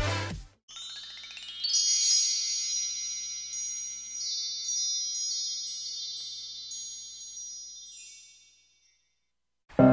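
Wind chimes ringing: many high, overlapping tinkling notes that swell in about two seconds in and slowly fade away, dying out shortly before the end.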